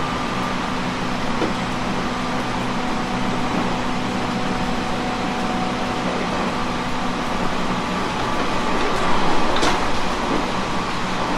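Sound inside a JR East 719 series electric multiple unit: a steady hum and whine from the train's equipment, swelling a little about nine seconds in, with a brief sharp sound at the peak.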